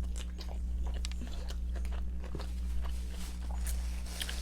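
Close-miked chewing of a mouthful of gyro sandwich on pita bread: wet, irregular mouth clicks and bites, over a steady low hum.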